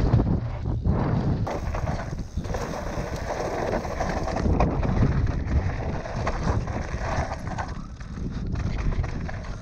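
Mountain bike rolling down a rocky shale slope: tyres crunching and sliding over loose stones, with scattered knocks and rattles from the bike and wind noise on the camera's microphone.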